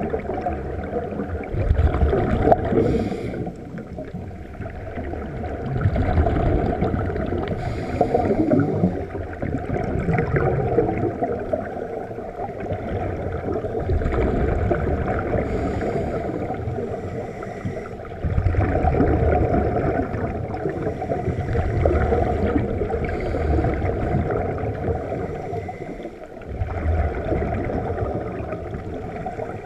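Scuba divers breathing through their regulators underwater: exhaled air bubbling out in muffled swells every few seconds.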